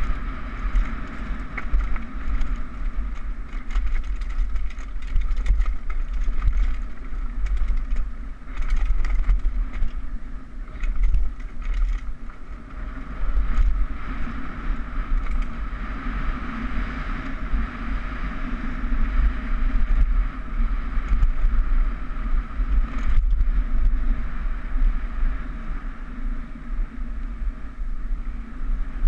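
Downhill mountain bike running fast over a dirt trail, recorded on a GoPro mounted on the bike: a steady rush of wind and low rumble, with scattered clicks and rattles from the tyres and bike.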